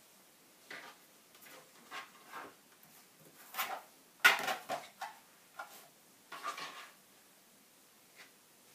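Fleece fabric being cut and handled on a cutting mat: scattered short rustles and light knocks from the fabric, a rotary cutter and a ruler, the loudest a little past four seconds.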